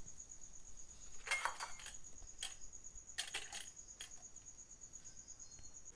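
Metal cooking-pot lid clinking several times as a hand takes hold of its knob, over a steady high-pitched trill.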